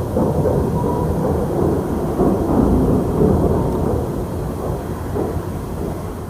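A loud, continuous low rumble without a clear pitch, swelling about halfway through and tapering toward the end.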